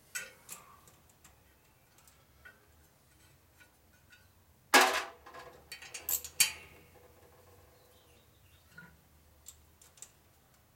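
Metal tool clinks from a socket wrench working the fasteners on an air compressor pump head: a few light clicks at the start, a loud metallic clank about five seconds in followed by a quick run of clinks, then a few scattered ticks.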